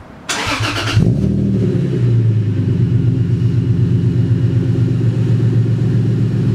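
Lexus IS300's 2JZ-GE inline-six, fitted with an OBX aftermarket header, cranked by the starter and catching about a second in, then settling into a steady idle through the exhaust.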